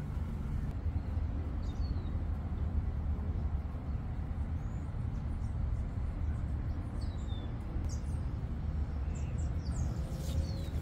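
Outdoor ambience: a steady low rumble with a few short, high, falling chirps scattered through it, and a brief rustle near the end.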